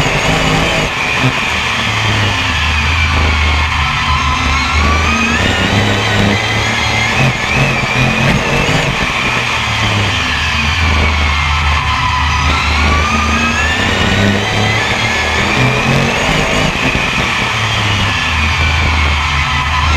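A BRISCA F1 stock car's V8 engine heard from on board, racing. Its pitch climbs under acceleration on the straights and drops as the driver lifts for the bends, in a repeating cycle about every four seconds.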